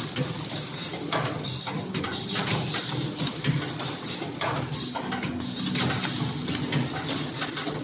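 Ice-cream-stick cassetting machine running: wooden sticks clattering and rattling as they are fed, with many irregular clicks.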